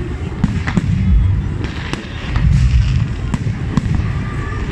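Aerial fireworks bursting in quick succession: several sharp bangs and crackles over a continuous deep rumble of shell explosions.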